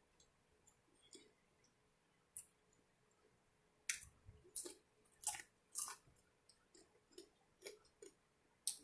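Quiet chewing with wet mouth clicks and smacks, a cluster of sharper smacks between about four and six seconds in and another near the end.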